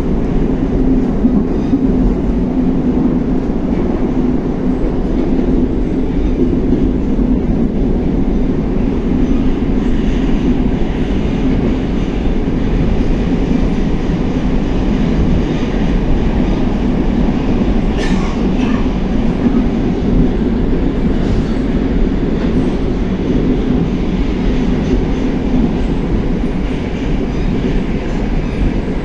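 A Moscow Metro 81-760A/761A "Oka" subway train running between stations, heard from inside the car: a steady low rumble of wheels and running gear, with one brief sharp click about 18 seconds in.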